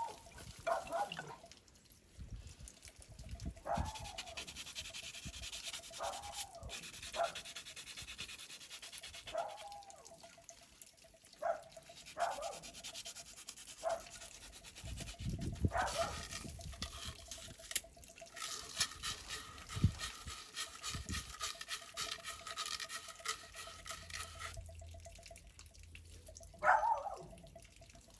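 A dog barking on and off, single barks spread a few seconds apart, over a faint steady hum.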